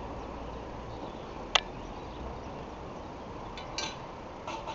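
A single sharp click about one and a half seconds in, then a few fainter clicks near the end, over a steady low background hiss.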